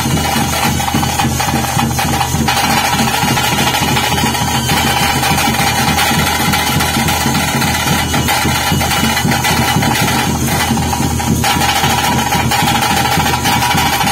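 Traditional ritual drum ensemble playing fast, dense beats, with a steady held high tone over them.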